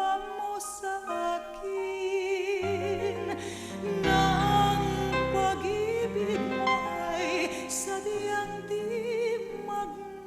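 Slow, tender music: a melody held in long notes with vibrato over a soft accompaniment. Deeper bass notes come in after a couple of seconds and fill out from about four seconds in.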